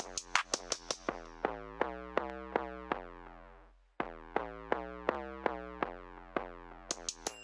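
Instrumental hip-hop beat with no vocals: quick repeated synth notes over a sustained bass. The hi-hats drop out after about a second, the beat fades away just before four seconds in, then comes back abruptly, and the hi-hats return near the end.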